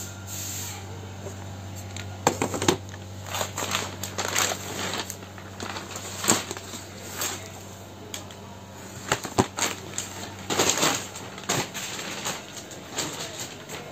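Scattered light knocks, clicks and rustles of framed pictures and boards being handled, over a steady low hum.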